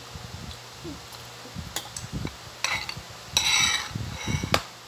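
A metal spoon clinking and scraping against a ceramic cereal bowl: a few sharp clinks, with a longer, louder scrape about three and a half seconds in.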